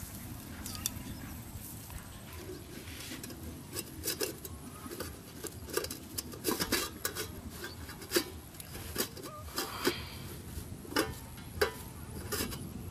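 Cloth rustling as a cloth-wrapped bundle is untied, then stainless steel plates being handled, giving a run of short sharp clinks and taps in the second half.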